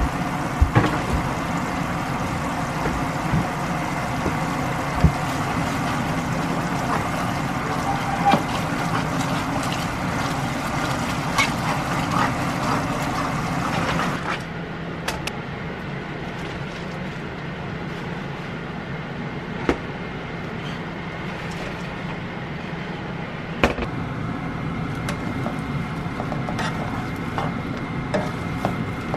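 Sesame chicken sauce with garlic and sesame oil bubbling and sizzling in a nonstick frying pan, with a few sharp knocks of a utensil against the pan as it is stirred. About halfway through the sizzle turns duller and a little quieter, and the fried chicken pieces are stirred through the sauce.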